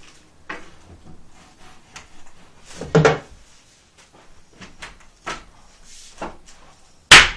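Wooden flat-pack bunk bed parts being handled and knocked together: scattered light knocks and clatters, then a sharp, loud wooden knock near the end.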